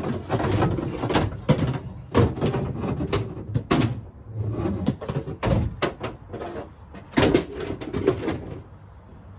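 Repeated irregular knocks, clunks and scraping of a heavy wheeled machine being manoeuvred by hand, easing off near the end.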